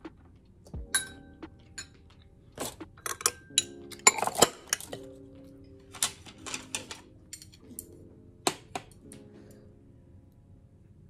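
Metal spoon and chopsticks clinking against porcelain bowls and dishes: a dozen or so sharp clinks, most of them clustered around four seconds in, over soft background music.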